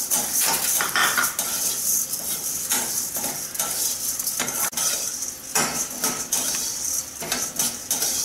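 Metal spatula scraping and stirring in a steel kadai as ingredients dry-roast in a few drops of oil, with repeated short scrapes and clinks over a light sizzle.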